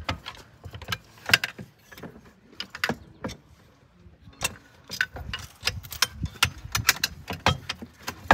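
Irregular clicks, knocks and rattles of a Sea-Doo Spark's jet pump housing and its bolts and linkage being handled and worked loose by hand. The clicks come more often in the second half.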